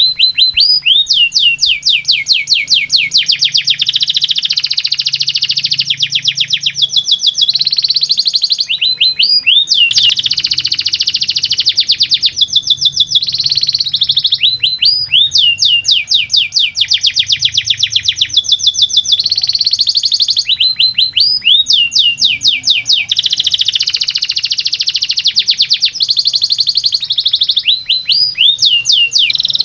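Domestic canary singing a long, continuous song: fast trills and rapid runs of repeated sweeping notes, broken by short pauses every few seconds.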